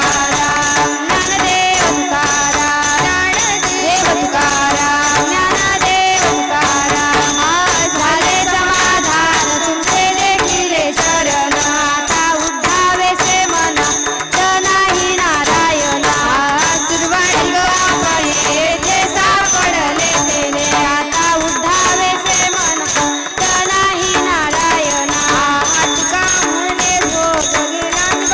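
Marathi devotional bhajan music: a wavering melody over a steady drone, driven by a fast, even beat of jingling hand cymbals and drum.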